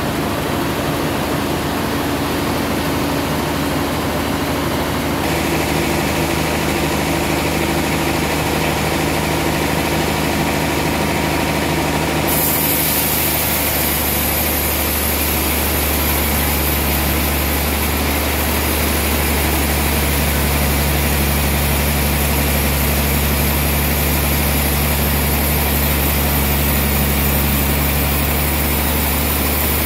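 Large band sawmill running with a steady machine hum. About twelve seconds in, the sound shifts abruptly to a heavier low hum with a steady high hiss as the blade saws through the trembesi log.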